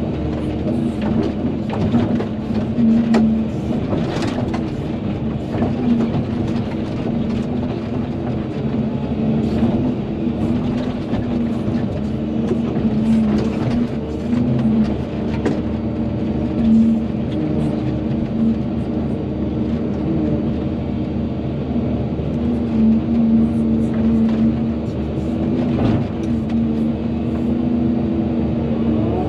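Volvo EC220DL excavator's diesel engine running steadily under working load, with occasional short knocks and clanks.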